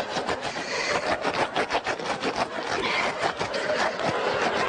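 A raw potato being scrubbed hard between textured peeling gloves, a rapid, irregular rasping of rubber against potato skin.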